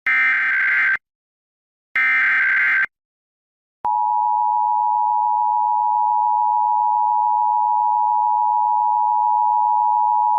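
Emergency Alert System SAME header: two harsh data bursts of about a second each, a second apart. About four seconds in, after a short silence, the EAS attention signal starts: a loud, steady two-tone 853/960 Hz tone that keeps going.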